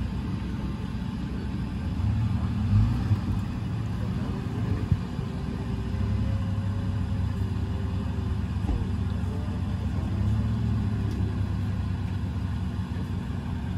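Toyota Land Cruiser's engine running with a steady low rumble, hooked by a recovery strap to a disabled truck; it revs up briefly about two seconds in and again near ten seconds. A couple of short knocks are heard early on.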